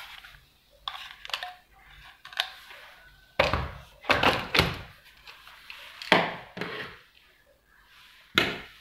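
Plastic-bodied cordless drills and impact drivers being picked up, knocked together and set down on a table: a series of irregular thunks, several loud ones in the middle and another near the end.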